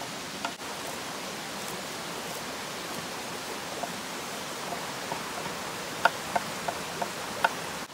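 Steady rush of a flowing stream, with a quick run of about five sharp knife chops on a wooden black walnut cutting board near the end as garlic is cut with a cleaver-style sheepsfoot knife.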